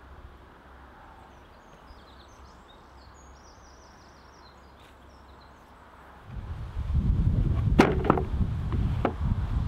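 Quiet outdoor ambience with faint high chirps, then about six seconds in a loud low rumble on the microphone begins, with a few sharp clicks and knocks a second or two later.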